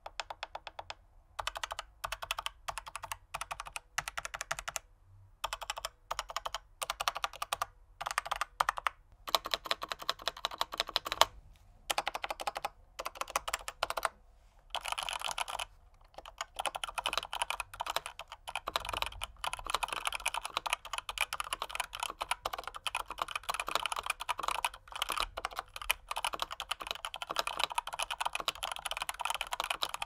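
Razer BlackWidow V4 Pro full-size mechanical keyboard with Razer Yellow linear switches being typed on. Short runs of keystrokes with pauses come first, then steady fast typing from about fifteen seconds in. It is a muted keyboard sound, with foam dampening in the case and dampening built into the switches.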